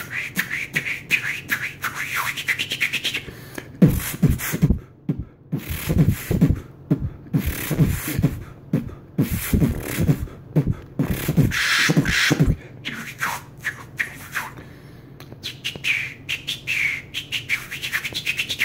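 A man beatboxing a club-style beat. It opens with high gliding vocal sounds, turns to a dense run of deep kick drums and sharp snare clicks from about four seconds in, and then eases into sparser clicks and high sweeps, with a quick run of clicks near the end.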